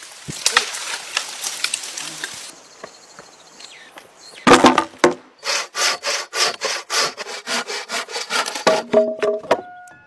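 Hand saw cutting through an old, weathered wooden beam in quick, even back-and-forth strokes, about three a second. Before the sawing, for a couple of seconds, there is a dense crackling of twigs and dry wood.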